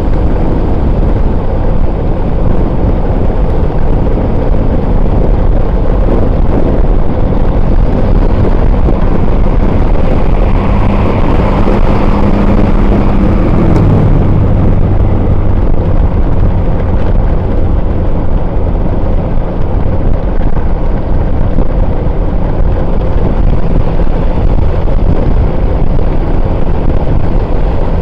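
Steady road and wind rumble from a moving vehicle, with an engine running underneath; about thirteen seconds in, an engine note drops in pitch.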